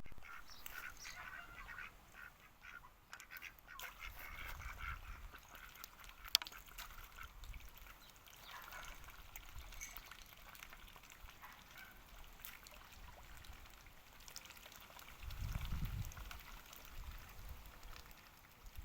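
Ducks quacking repeatedly, most busily in the first half. A single sharp click comes about six seconds in, and a low rumble swells briefly near the end.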